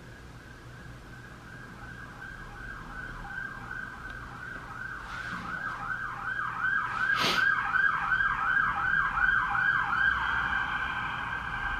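An emergency vehicle siren growing louder: a held high tone that switches about three seconds in to a fast rising-and-falling yelp, then settles back to a held tone near the end. One sharp click about seven seconds in.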